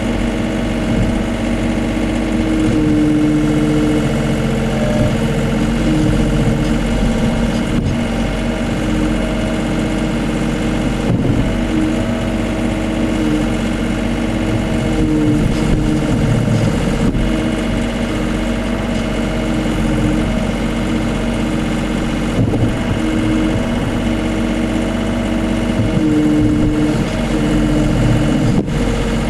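Case CX39B mini excavator's diesel engine running steadily while the hydraulics move the boom and arm, with a few sharp knocks.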